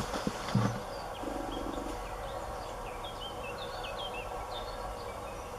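Outdoor ambience with small birds chirping off and on over a steady low background noise.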